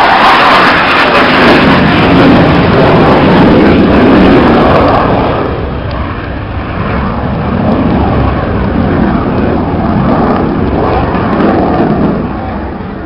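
Jet aircraft flying a display pass, its engine giving a loud rushing roar whose tone slowly shifts. The noise is loudest for the first few seconds, dips, swells again and fades near the end as the jet draws away.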